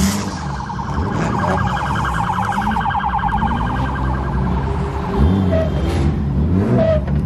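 An electronic siren warbles rapidly for about three seconds over running car engines. Near the end, engines rev up and down.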